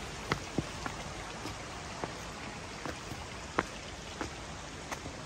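Footsteps of hikers walking over sandstone rock: sharp ticks and scuffs of boots, roughly one every half second to second, over a steady hiss.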